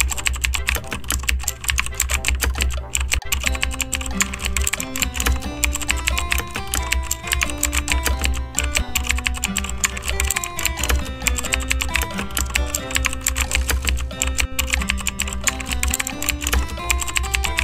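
Rapid, continuous computer-keyboard typing, a dense clatter of key clicks, over background music with a stepping melody and a steady low bass.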